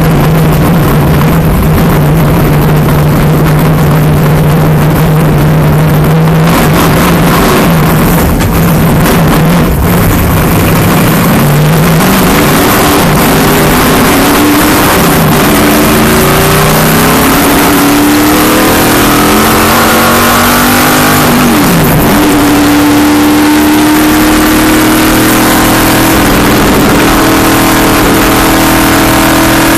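Race car engine at speed, very loud and close. It holds a steady drone for about the first ten seconds, then revs up and down through the middle with one sharp drop and climb just past two-thirds in, and settles into a higher, steady pitch near the end.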